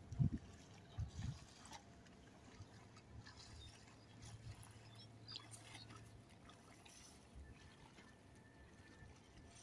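Faint water sounds: small splashes and lapping of sea water, with a few low thumps in the first second and a half.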